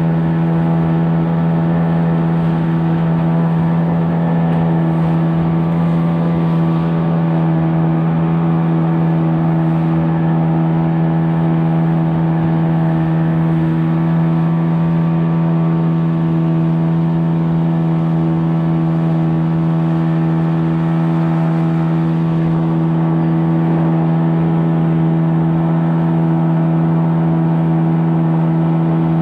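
An engine running at a constant speed, giving one steady low tone with overtones that never changes in pitch or loudness.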